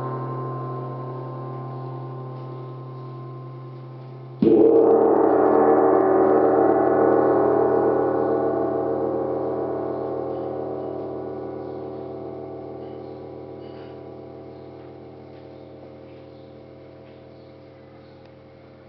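Small tam-tam of 2 mm sheet with folded edges, ringing out from a previous stroke and then struck once about four seconds in. The sound swells briefly after the strike and then fades very slowly, with a long sustain.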